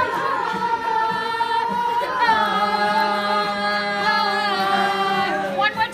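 Music with singing: voices hold long, steady notes, one and then another starting about two seconds in.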